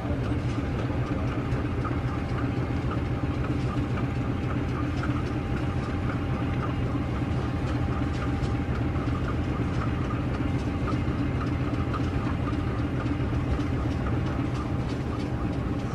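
CC 206 class diesel-electric locomotive running steadily at low throttle as it moves slowly along the track, a constant engine drone.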